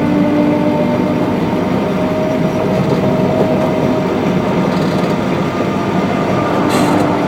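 Small diesel locomotive of a 15-inch gauge ride-on railroad running steadily, with the continuous rumble of the train rolling along the track.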